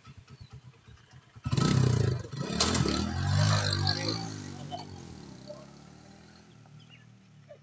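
Motorcycle engine idling with a fast, low putter, then suddenly revved hard about a second and a half in as the bike pulls away. Its pitch rises and falls, then the sound fades as it rides off.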